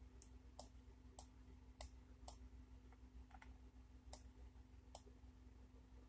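Computer mouse button clicking faintly, about eight sharp clicks at irregular intervals.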